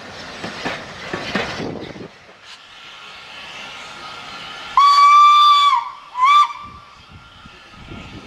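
Steam locomotive whistle: one long blast of about a second, then a short second blast, each on one steady pitch that sags as the blast ends.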